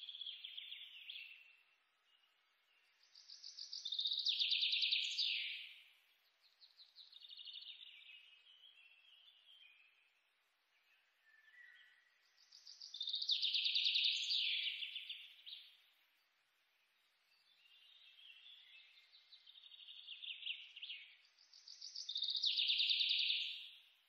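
Marker pen scratching on paper in spells of rapid back-and-forth colouring strokes, a few seconds each with short pauses between.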